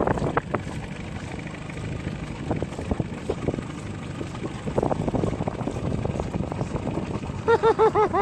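Wind buffeting the microphone over open water, with small splashes and knocks of water against the boat. A brief, rapidly repeated pitched warble comes in near the end.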